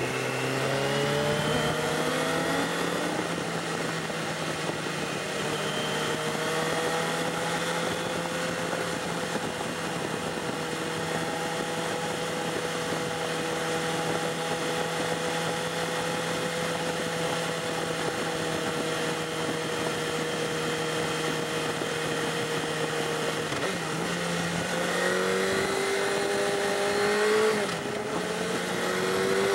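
Sport bike engine heard from the saddle while riding. Its pitch climbs in the first few seconds, holds steady at cruising speed for most of the time, then drips and climbs again near the end, with a rush of wind and road noise underneath.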